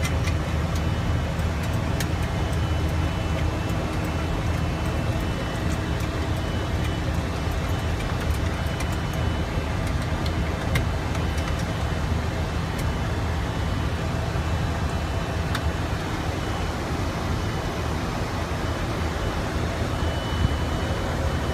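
Steady drone of an airliner's engines and rushing air heard inside the cockpit, with a constant thin high tone and a few faint clicks.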